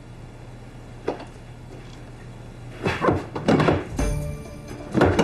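A few dull knocks and thuds, with a low heavy thump about four seconds in, over quiet background music.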